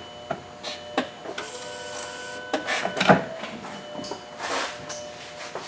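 Clicks and knocks with a steady electronic tone in the car's electrics as the ignition key is turned on an Audi A4 Quattro. There is no cranking: the starter motor is bad and does not turn over.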